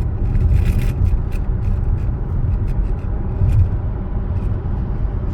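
Steady low road and tyre rumble inside the cabin of an SsangYong Torres cruising at highway speed, with a few faint light ticks in the first second or so.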